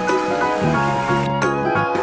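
Background music with a bright, steady melody.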